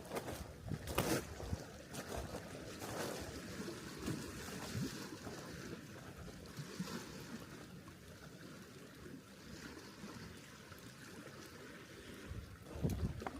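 Water splashing and lapping, loudest in the first few seconds and settling to a steady wash, with a few low thumps near the end.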